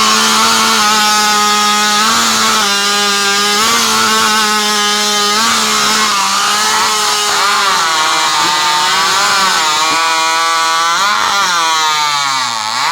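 Modified racing chainsaw (hot saw) engine screaming at full throttle. Its high pitch holds steady at first, then dips and recovers again and again as the saw bogs under load in the timber. It drops off near the end.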